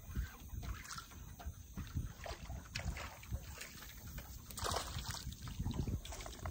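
Water sloshing and small knocks around a canoe, with a brief splash about four and a half seconds in as a hooked bass is brought up.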